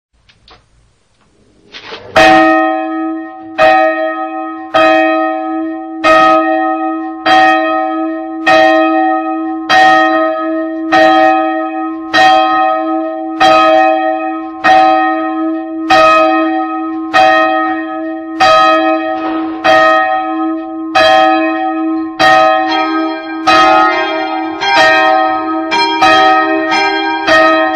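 Church bells ringing. After about two seconds one bell starts tolling, striking evenly about once every second and a quarter, each stroke ringing on into the next. Near the end a second, higher bell joins, and the strokes of the two alternate.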